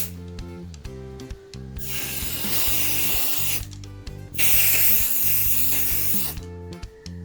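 Spray can hissing in two bursts of about two seconds each, a second apart, the second louder, over background music.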